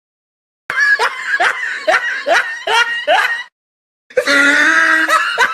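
Dubbed-in high-pitched laughing sound effect: about six sharp 'ha' bursts, each falling in pitch, roughly two a second. After a brief gap, a second loud vocal sound effect starts about four seconds in.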